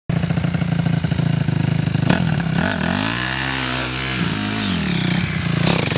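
Dirt bike engine running with a fast, even pulse, then revved once, its pitch rising and falling back over about two seconds. A sharp click comes just before the rev.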